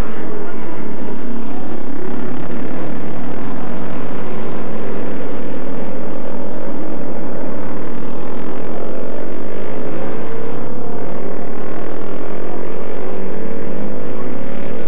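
Several classic racing motorcycle engines running hard at full throttle, their notes overlapping. In the second half the pitch rises as the bikes accelerate.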